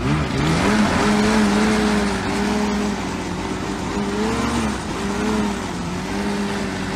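Snowmobile engine running at high revs, its pitch mostly held steady but briefly rising and falling about four seconds in, over a steady hiss.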